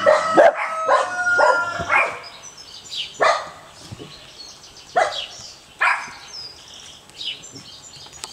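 Six-week-old Peruvian Hairless puppies yipping and barking at play: a run of high, wavering yips and whines in the first two seconds, then single sharp barks about three, five and six seconds in.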